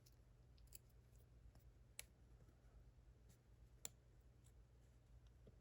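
A few faint, sharp metal clicks over near silence, from a small tool prying at the retaining ring on a Clavis 10-pin lock's cylinder. The two sharpest clicks come about two seconds and about four seconds in.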